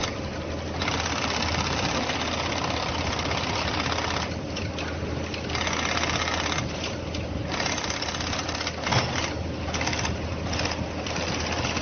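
Industrial sewing machine stitching a shoe, running in spurts. Its stitching noise drops away for about a second several times while a low motor hum carries on.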